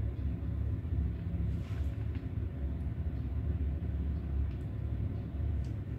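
Steady low background rumble with a couple of faint light ticks.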